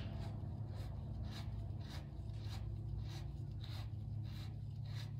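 Short, soft scraping strokes repeating about twice a second as greased fork bushings are worked down a motorcycle fork tube, metal sliding on metal, over a steady low hum.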